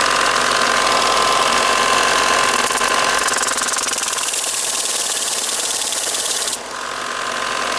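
Belt grinder running with a piece of 5160 spring steel held against the abrasive belt, sanding it flat: a loud, steady grinding hiss. About six and a half seconds in, the high grinding hiss cuts off abruptly and the grinder's belt and motor keep running.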